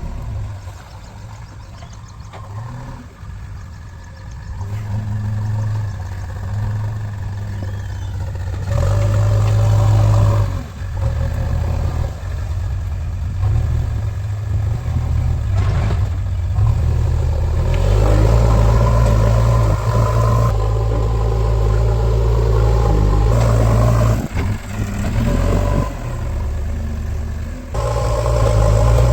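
Heavy diesel engine running and revving up and down repeatedly. It gets louder about a third of the way in, with brief drops in between.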